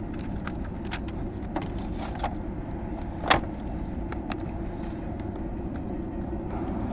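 Handling noises at a sport motorcycle: paper rustling and small clicks as the rear seat is unlatched and lifted off, with one sharp clack about three seconds in. A steady low rumble lies underneath.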